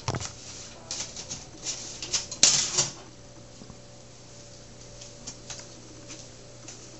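A run of irregular knocks and clicks over the first three seconds, the loudest about two and a half seconds in, then only a few faint ticks over a steady low hum.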